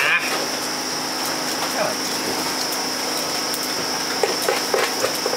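A steady machine hum with a constant high whine, over which a few short sharp knife clicks and scrapes sound about four seconds in as a fish is cleaned by hand on a board.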